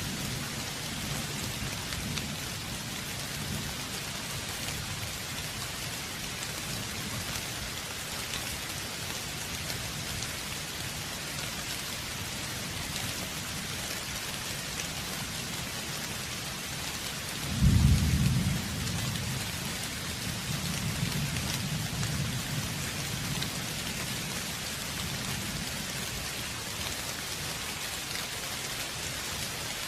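Steady heavy rain hissing throughout, with a sudden loud thunderclap a little past the middle that rolls off in a low rumble for several seconds.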